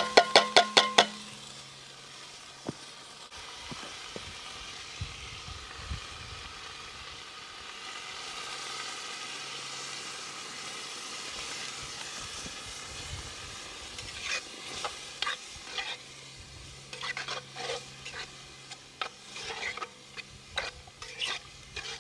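Food sizzling in a metal cooking pan while a metal utensil stirs and clinks against it: a quick run of clinks at the start, a steady sizzle through the middle, and irregular clinks again in the second half.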